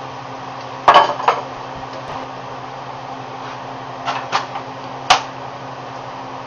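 Metal clanks of a spoon and a stainless steel stockpot being handled on a stovetop: a double clank about a second in, then a few more knocks around four seconds and a last sharp clank just after five. A steady low hum runs underneath.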